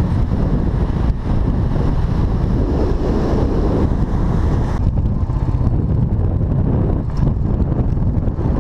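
Wind buffeting the microphone in a heavy, steady low rumble over surf washing up the beach. About five seconds in the higher hiss drops away.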